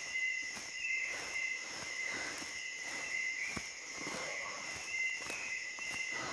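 Steady, high-pitched chorus of insects in a forest, with scattered light clicks and ticks through it.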